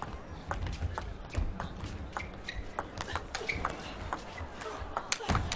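Table tennis rally: the ball clicking sharply off the rackets and the table in quick succession, a few hits a second.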